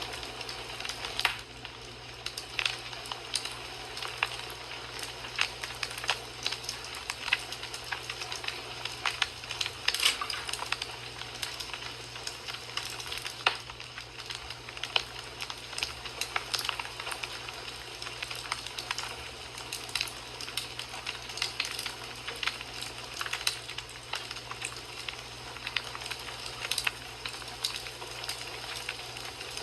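Wood fire crackling in a fireplace: a steady hiss with frequent, irregular sharp pops and snaps.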